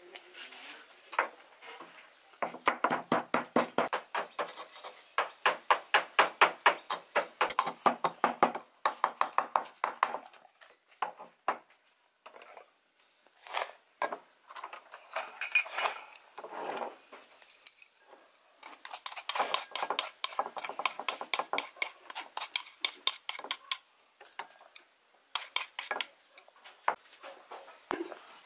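A wooden pestle pounding seasonings in a wooden mortar: fast, even knocks, several a second, in two long runs with a pause and a few scattered knocks between them.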